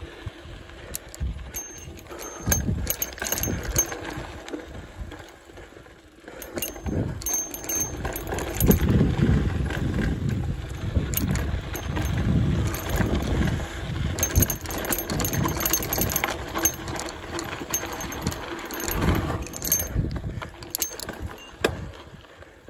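Mountain bike riding down a dry dirt trail: tyres rolling and crunching over dirt and gravel, the bike rattling and clicking over bumps, and wind buffeting the microphone. It gets louder from about eight seconds in and dies down near the end.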